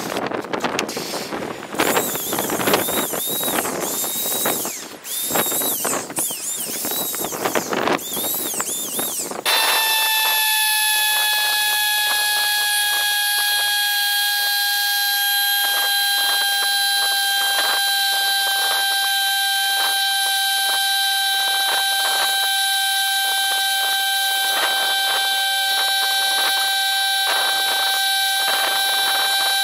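A propane torch burning against the carved wood, a loud rushing hiss, for about the first nine seconds. Then a handheld electric power tool with a brush attachment runs at a steady high whine that sags slightly in pitch under load, with rapid scratching as the brush works over the scorched wood.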